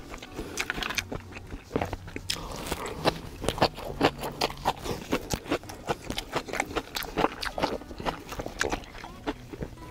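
Eating yukgaejang cup noodles: chewing and crunching, with many short, irregular clicks and scrapes throughout.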